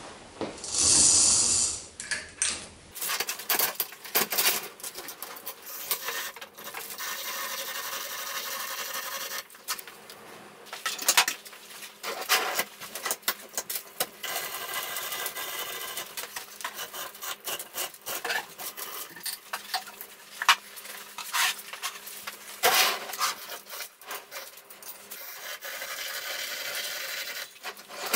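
Heavy cast-iron milling machine accessories being handled in a wooden crate: irregular metal knocks and clanks, scraping of iron on wood, and a lifting chain clinking and rattling in steady stretches. A brief loud rush of noise opens it.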